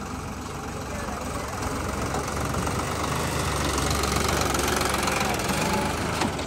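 Eicher 650 tractor's diesel engine running as the tractor drives close past, growing louder over the first few seconds. There is one sharp knock near the end.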